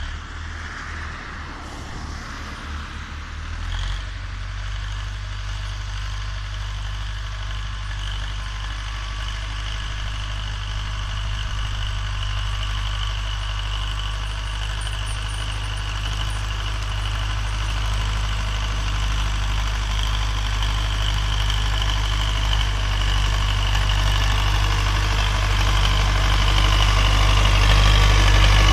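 Diesel engine of a wheeled farm tractor ploughing, running steadily and growing louder as it comes closer.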